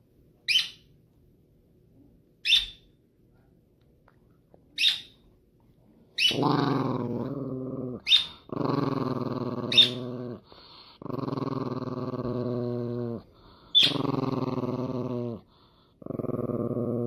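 Small dog giving five long, steady, low howling grumbles of about two seconds each, with a few short sharp yips between them. Three short high squeaks come before the dog starts.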